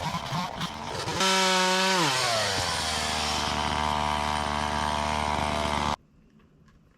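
Stihl two-stroke chainsaw working through a limb, then revving high with the chain free, its engine note falling after about a second to a steady lower speed. The sound cuts off abruptly near the end.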